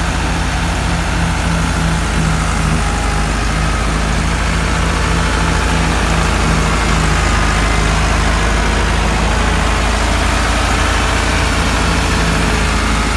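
Massey Ferguson 385 tractor's four-cylinder diesel engine running steadily under load, driving a wheat thresher through its PTO shaft, with the thresher's machinery running along with it.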